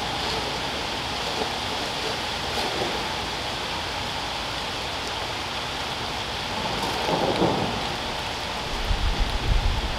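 Steady rain falling on wet pavement and leaves, an even hiss; a low rumble comes in near the end.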